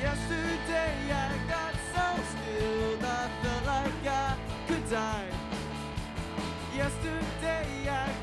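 Live rock band playing: electric guitar, electric bass, keyboard and drum kit, with a steady drum beat under melodic lines.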